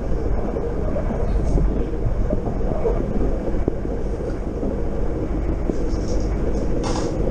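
Passenger train running at speed, heard from inside the carriage: a steady low rumble of wheels on rails, with a brief hiss near the end.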